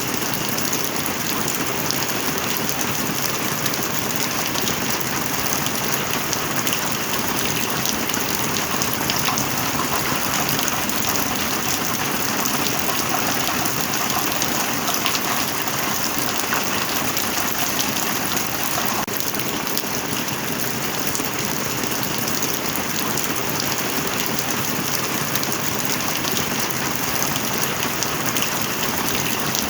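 Heavy rain falling steadily, a dense unbroken patter of drops hitting a surface.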